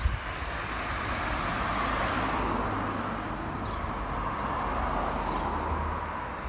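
A car driving past on the road, its tyre noise swelling and fading, with a low rumble underneath.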